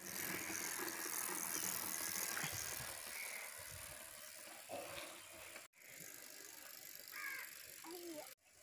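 Mountain bike rattling over a rough dirt trail with wind noise on the microphone, then quieter rustling and clicks as the crashed bike lies on the ground and is handled.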